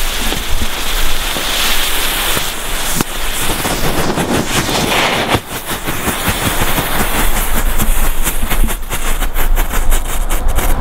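Three whirling strobe-ball fireworks burning on asphalt, giving a steady hiss with crackling pops that become a dense, fast run in the second half.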